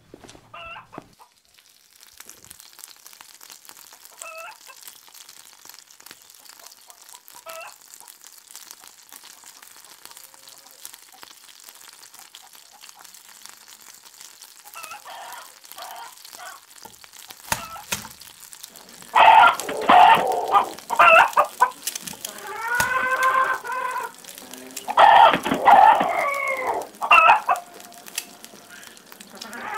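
Chickens clucking and calling, faint and sparse at first, then loud and frequent for the last ten seconds or so. Under them runs a steady crackling hiss, the sizzle of eggs frying in a pan.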